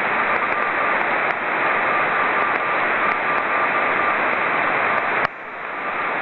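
CO-66 (SEEDS II) satellite's CW beacon received on a Yaesu FT-817: a Morse code tone keyed on and off in a steady hiss of radio noise. About five seconds in, the tone ends and the hiss drops suddenly.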